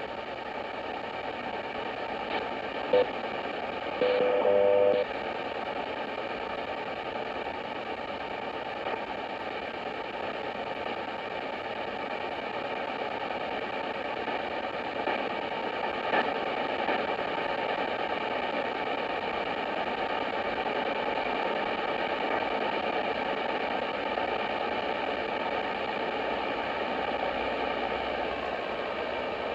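Sony ICF-2010 shortwave receiver scanning across the AM shortwave bands, giving steady static hiss through its speaker with no station held. A short tone comes about three seconds in, and a second-long tone about four seconds in.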